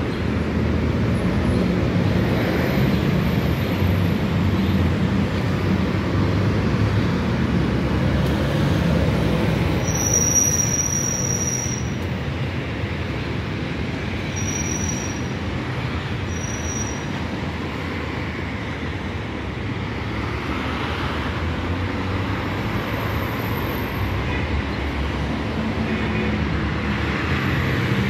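Steady rumble of city street traffic, with vehicles passing continuously.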